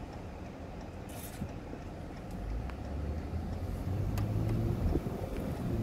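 Low rumble of a motor vehicle going by on the road, growing louder from about two and a half seconds in.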